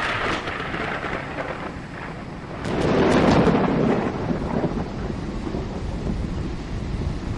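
Thunder over the continuous roar of storm waves breaking against a breakwater. A first swell comes right at the start, and a louder rumbling surge about three seconds in.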